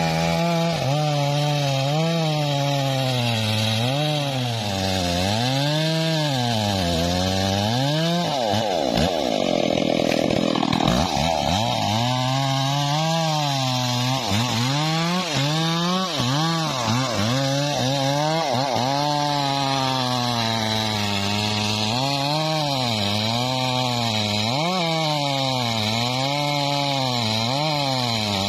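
Stihl two-stroke chainsaw at full throttle cutting into the base of a standing teak trunk. The engine pitch rises and falls every second or so as the chain bites into the wood and eases off, and about ten seconds in it drops lower for a couple of seconds under heavier load.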